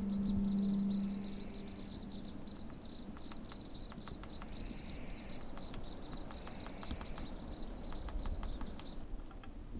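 Chickadees calling: a long, even run of rapid high chips at one pitch that stops about a second before the end. A low steady hum fades out in the first second or two.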